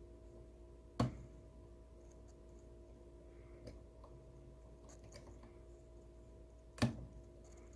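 Lishi pick working the wafers of an Infiniti G35 Nissan 10-cut ignition lock: two sharp clicks about six seconds apart, with faint light ticking between them, over a steady low hum.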